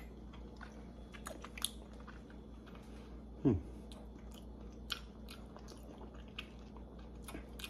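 Close-up chewing and mouth sounds of a person eating a lemon drop mangosteen fruit: scattered small wet clicks and smacks. About three and a half seconds in comes one short hum that falls in pitch.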